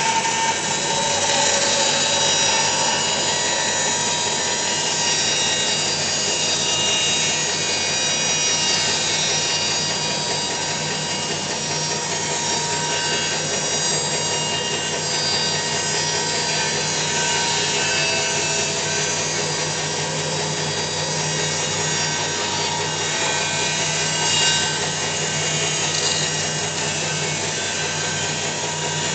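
Grizzly G0514X2B bandsaw resawing a green cedar log with a 1.25-inch, 1.3 TPI hook-tooth blade: steady motor and blade noise with continuous sawing, which jumps in loudness as the blade enters the wood right at the start. There is one brief louder moment about 24 seconds in.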